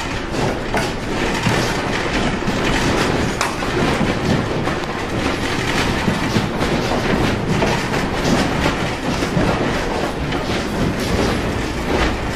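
A building and its fittings rattling and rumbling through strong earthquake shaking: a continuous loud din of clattering and small knocks, without a break.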